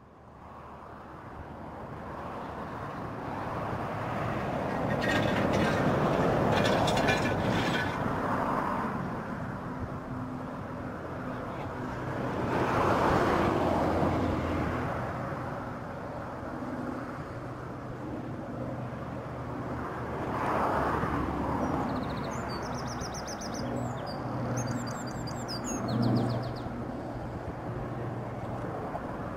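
SR N15 King Arthur class 4-6-0 steam locomotive approaching at a distance, a rushing sound that swells and fades several times as it comes nearer.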